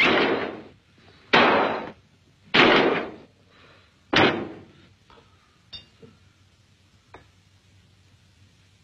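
Four loud crashing bangs, each dying away over about half a second, then a few light clicks and taps.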